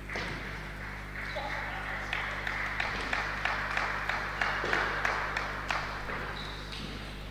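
Spectators applauding after a table tennis point. The clapping starts about a second in and fades near the end, over a steady low electrical hum.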